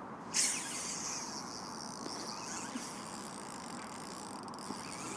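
Steady rush of fast-flowing river water. Just under half a second in, a high hiss comes in suddenly, loudest at its start, and carries on.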